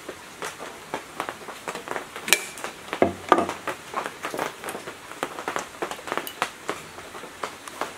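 Irregular small clicks and taps of wire ends, terminal nuts and hand tools being handled at an electric motor's terminal box, with a few louder metallic clinks a little over two and three seconds in.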